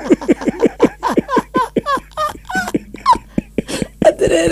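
A person's voice laughing in rapid, loud bursts, each short and falling in pitch.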